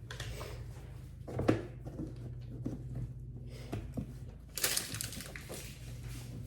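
Kitchen handling noises while measuring flour: a few light knocks and clicks of a spoon and containers, then, about two-thirds of the way in, a rustle like the flour bag being folded closed.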